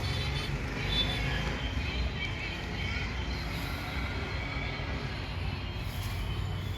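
Steady street noise, mostly a low traffic rumble, with no distinct events.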